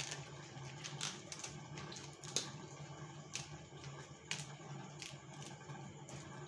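Bok choy leaves being snapped off their stalks and handled in a plastic basin: scattered light crackles and clicks, one sharper than the rest a little over two seconds in, over a low steady hum.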